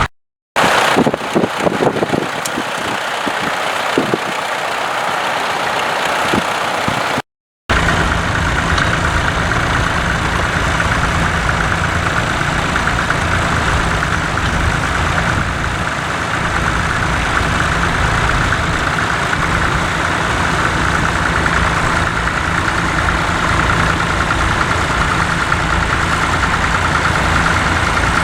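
Tractor engine running steadily, with a low rumble. Two short gaps of silence break it near the start and about seven seconds in, and the sound is lighter with a few knocks between them.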